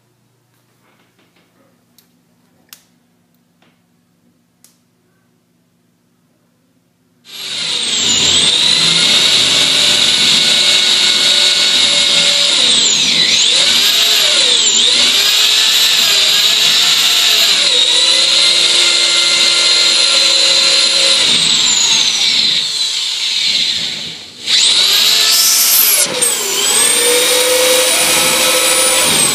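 Electric drill spinning a 1-1/2-inch Socket Saver reaming bit, cutting old plastic drain pipe out of a fitting. It starts about a quarter of the way in: a loud motor whine whose pitch sags and recovers again and again as the bit bites. Near the end it slows almost to a stop, then speeds up again.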